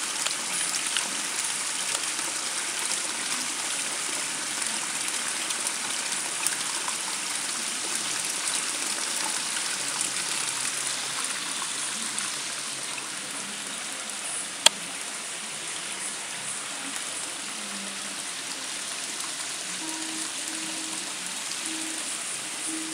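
Pond water splashing and trickling steadily as it spills from the filter boxes back into a koi pond. A single sharp click about two-thirds of the way through.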